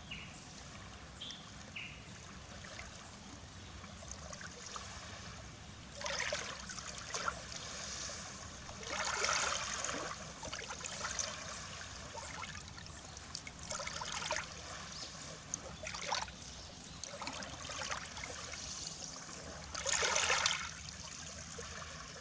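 Small waves lapping and washing onto the Baltic Sea shore, one wash every second or two from about six seconds in, the loudest near the end. A few short bird chirps near the start.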